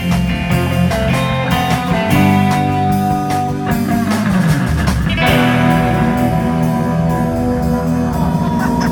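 Live rock band playing an instrumental passage with electric guitar and drum kit, held chords and notes with a sliding fall in pitch about four seconds in before a new chord.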